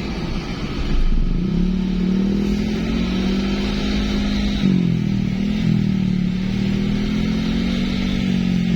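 Road vehicle's engine running under way, a steady hum that dips and climbs again about five seconds in.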